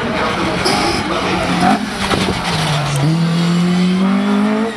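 Opel Kadett race car's engine revving hard through a cone slalom: the note dips a little before two seconds in, then climbs steadily as the car accelerates out of the turn, with tyres squealing as it slides.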